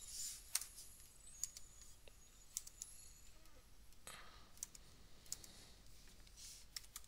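Faint, irregular clicks of a computer mouse and keyboard.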